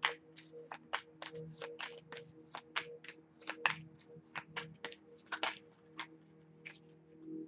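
A deck of cards shuffled by hand: an uneven run of crisp card snaps, about three a second, over soft background music holding steady low tones.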